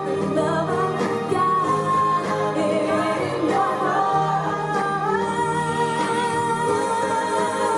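Christian children's song playing: a sung melody over instrumental accompaniment, with some long held notes.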